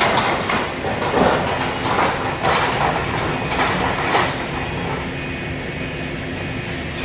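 A heavy machine's engine running steadily, with a run of metallic clanks and knocks of debris over the first four seconds or so. After that only the engine drone goes on.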